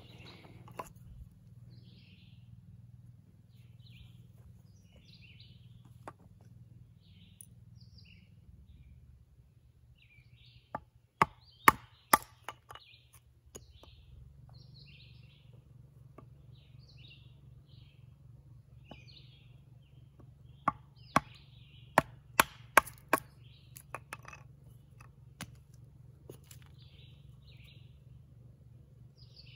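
Sharp chopping blows of an edge tool into a wooden spoon billet, in two bursts of about five and seven strikes. Birds chirp faintly throughout.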